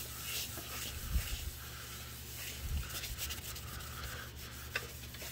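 Paper towel dampened with rubbing alcohol wiping a smooth, non-porous surface clean: faint, irregular rubbing strokes with a few soft low thuds from the hand.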